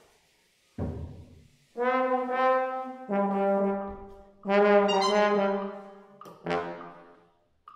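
Bass trombone improvising: a short low note about a second in, then four long held notes, each swelling and fading.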